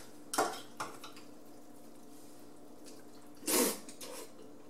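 Chopsticks tapping and stirring in a pot of instant noodles, two short sounds near the start, then a single short slurp of noodles about three and a half seconds in.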